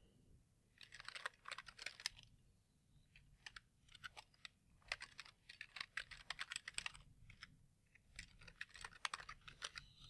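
Faint typing on a computer keyboard: three runs of quick keystrokes with short pauses between, as an email address and then a password are typed in.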